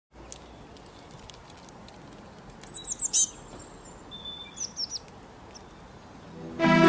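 Bird chirping: a quick cluster of short, high, falling chirps about three seconds in, a brief whistled note, then another few chirps near five seconds, over a faint background hiss. Music comes in loudly just before the end.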